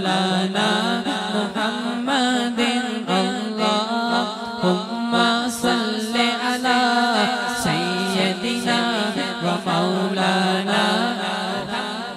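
Man singing a durood, an Islamic devotional chant in praise of the Prophet, into a microphone, in long ornamented lines that slide up and down in pitch. Under the voice runs a steady low drone.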